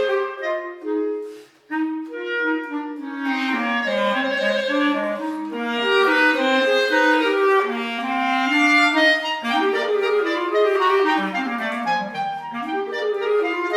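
Clarinet playing a moving melodic line of short, steady notes in a classical-style arrangement, with a brief pause about a second and a half in.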